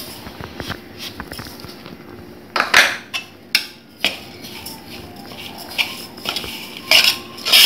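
Stainless steel serving spoon knocking and scraping against a stainless steel bowl while mixing steamed ragi vermicelli with sugar, with a few sharper clatters about two and a half seconds in and again near the end.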